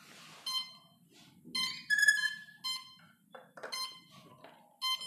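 Quadcopter's brushless motor beeping a series of short electronic tones, played through the motor by its ESC on power-up with the throttle at full: the ESC is entering throttle-range calibration. The beeps are irregularly spaced, with one slightly longer note about two seconds in.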